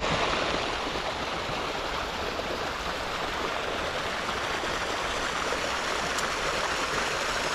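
Small creek's water running steadily, a constant even rush.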